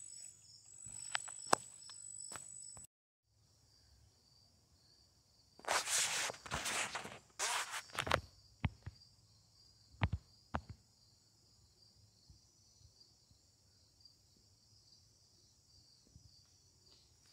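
Crickets chirring in a steady high drone. About six seconds in there are a few seconds of footsteps, followed by several sharp clicks or twig snaps. The sound drops out briefly about three seconds in.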